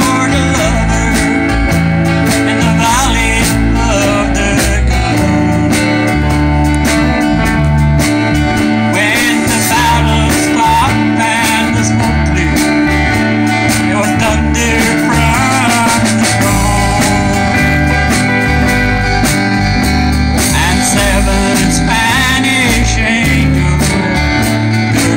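Live country band playing: acoustic rhythm guitar, electric lead guitar, bass guitar and drums, with a steady beat.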